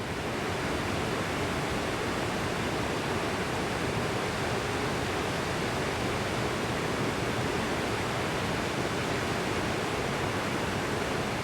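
Steady, even rushing of a tall waterfall, the Jungfernsprung, whose water drops freely more than 100 metres.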